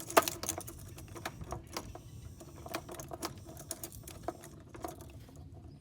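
A run of irregular light clicks and taps, with one sharper click just after the start. No engine is running.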